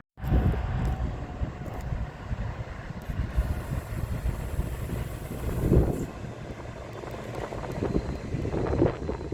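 A train passing on the line: a steady rumble of wheels on the rails, starting abruptly just after the beginning.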